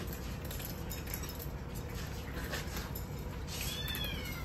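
A kitten gives a short, high-pitched mew that falls in pitch near the end, over a steady low hum.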